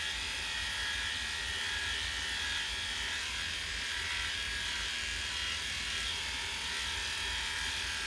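Electric dog-grooming clippers running steadily, a constant motor hum as they cut through the dog's coat.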